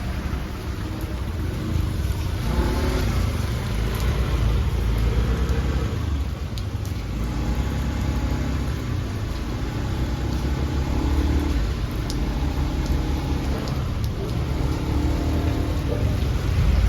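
Heavy rain falling steadily, with a deep continuous rumble underneath and scattered sharp drop clicks.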